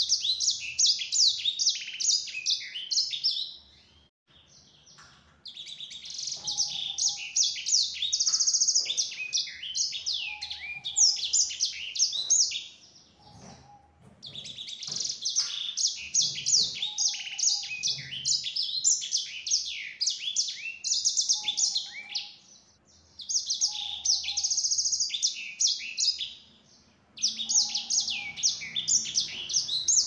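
A caged sanger (black-throated canary) singing long bouts of rapid twittering song, trills and quick chirps mixed together. The song breaks off briefly about four times.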